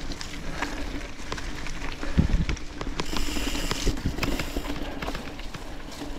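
Trek Supercaliber mountain bike climbing a loose dirt and gravel road. Its knobby tyres crunch and grip over stones, with scattered sharp ticks of grit and pebbles, and a few heavier thumps about two seconds in.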